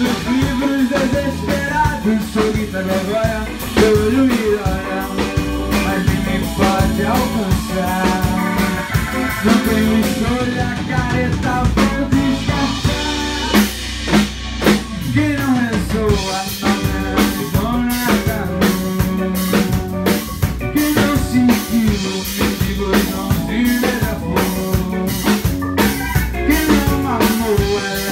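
A band playing an instrumental passage with no singing: a drum kit beats steadily on bass drum and snare with rim clicks, under pitched instruments.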